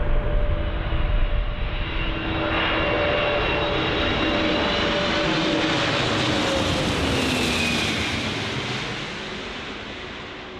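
Antonov An-124's four Progress D-18T turbofan engines on final approach, passing low overhead: a loud roar with steady whining tones that drop in pitch as it goes by, then fading away over the last couple of seconds.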